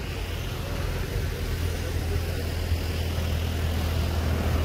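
Steady low engine rumble, like a vehicle idling, under a light hiss of outdoor background noise.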